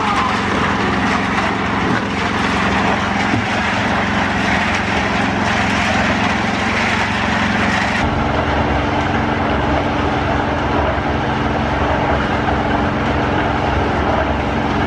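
Engine-driven portable concrete mixer running steadily, a constant engine hum under the churning noise of the drum mixing concrete. The hum changes abruptly about eight seconds in.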